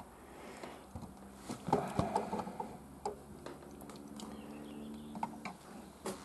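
Scattered light clicks and taps, a few louder ones around two seconds in, with a faint steady hum in the middle.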